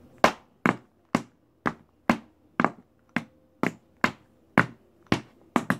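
Tap shoes striking a wooden board in an even rhythm of sharp taps, about two a second, as a child practises a toe-touch tap exercise. Near the end two taps come close together.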